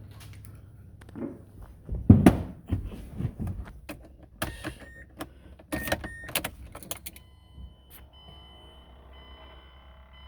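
Clicks, knocks and rattles from handling keys and parts in and around a car, loudest about two seconds in, with two brief beeps partway through and a faint steady electronic tone in the last few seconds.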